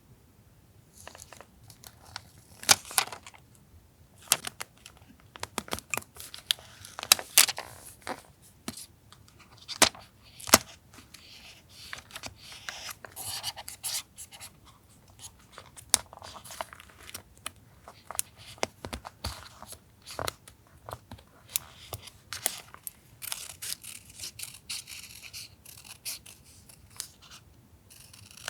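Paper being handled for collage journaling: rustling and tearing paper, with many sharp taps and clicks.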